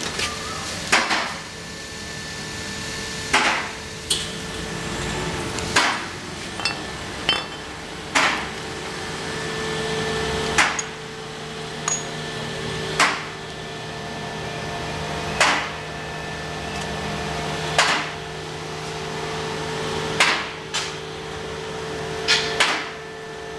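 Steady hammering: single sharp knocks, now and then doubled, about every two and a half seconds, over a faint steady hum.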